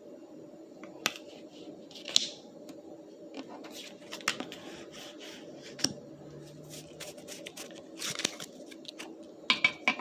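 Pokémon booster pack being opened and its cards handled: scattered sharp crinkles, snips and clicks of the foil wrapper and card stock, with a cluster of them near the end.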